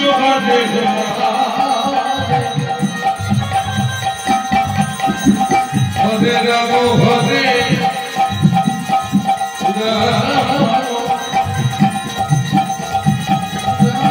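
Bengali kirtan music between chanted lines: hand-drum strokes keep a running rhythm under a steady held tone, with melodic lines sliding above.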